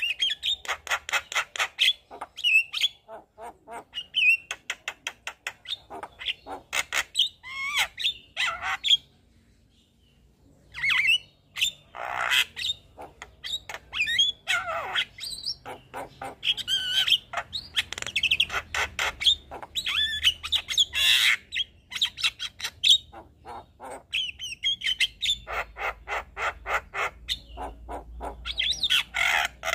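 Javan myna singing a long, varied song of rapid repeated chattering notes, harsh squawks and whistles. It breaks off briefly about ten seconds in, then resumes.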